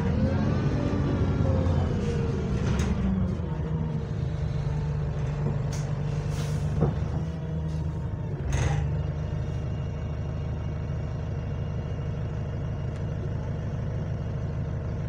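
Interior sound of a single-deck diesel bus: the engine's note glides in pitch over the first couple of seconds, then runs at a steady drone. Short hisses of air come from the brakes about six and nine seconds in.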